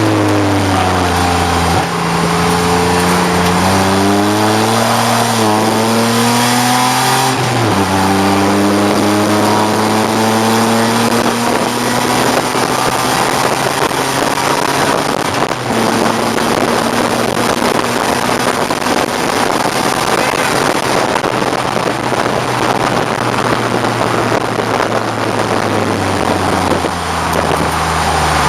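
A 1989 BMW 535i's straight-six racing under load: the engine note dips, climbs twice, drops suddenly at a gear change about seven seconds in, then holds steady under loud wind and road noise, easing to a lower note near the end.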